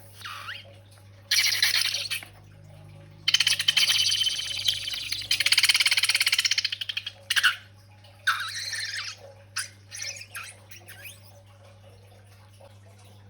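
Slime being squeezed and worked by hand, wet crackling squelches in several bursts, the longest lasting about four seconds, followed by a few small clicks.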